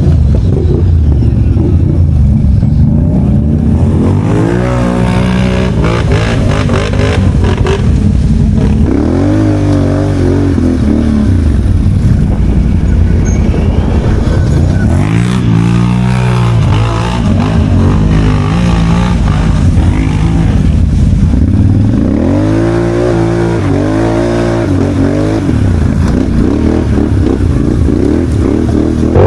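Off-road vehicle engine revving hard, its pitch rising and falling in several bursts of throttle.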